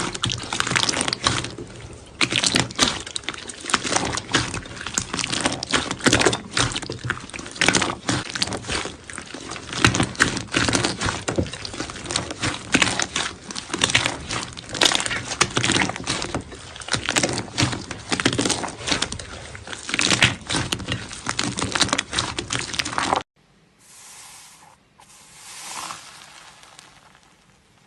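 Slime being squeezed and worked by hand: a dense, continuous run of crackling, popping clicks. About 23 seconds in it cuts off sharply to a much quieter stretch with two soft squishes.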